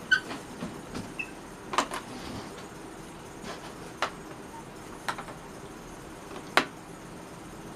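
Underwood Finger-Flite manual portable typewriter giving a few scattered, irregular clacks and clicks, spaced a second or more apart, with the loudest strike near the end.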